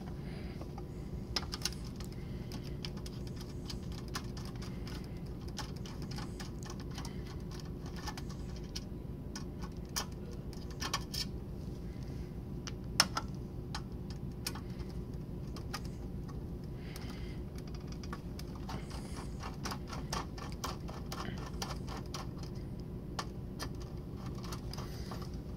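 Small hand screwdriver clicking and scraping against screws in a computer's sheet-metal chassis: scattered irregular clicks, with one sharper click about halfway. A steady low hum runs underneath.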